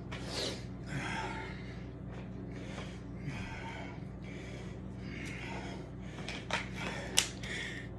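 A man breathing hard and heavily, about one breath a second, winded from a burpee, squat and mountain-climber workout, over a low steady hum. A few sharp clicks come near the end, the loudest about seven seconds in.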